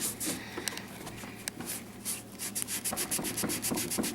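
Hand scrubbing on a Rotel RP 3000 turntable: short, hissy rubbing strokes, irregular at first, then quick and even at several a second from about halfway through.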